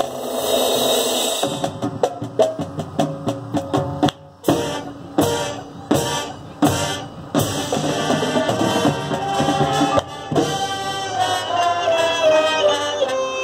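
High school marching band playing, with brass, woodwinds, drums and front-ensemble mallet percussion. The first half is a run of short, punched ensemble hits with sudden silences between them; then the band holds sustained notes, with a melody line falling in pitch near the end.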